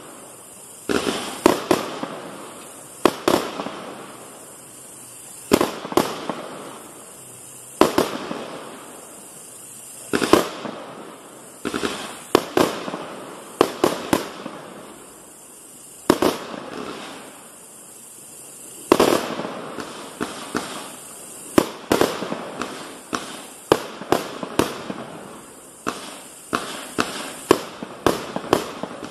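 Perfetto 144-shot fireworks cake with straight-firing 25 mm tubes shooting off one shot after another, each a sharp bang that trails off. The shots come about every two seconds at first and quicken into a rapid string near the end.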